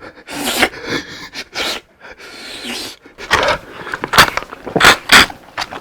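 Close-up eating sounds: breathy exhales through the mouth, then from about three seconds in a quick run of loud, crisp crunches as fried food is chewed.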